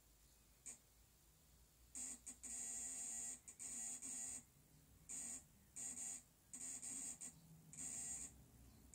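Faint, high-pitched electronic buzzing beeps in an uneven on-off pattern: a short one early, then from about two seconds in bursts of a quarter second to nearly a second, about one or two a second.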